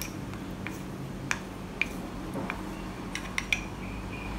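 Light, scattered clicks and taps of wooden chopsticks against a small bowl as cornflour is tipped gradually onto marinating pork ribs, about half a dozen in all, over a low steady hum.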